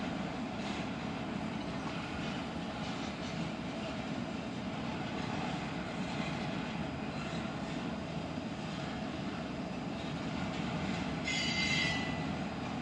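Intermodal freight trains of container cars rolling past, a steady rumble of steel wheels on rail. A brief high-pitched wheel squeal comes near the end.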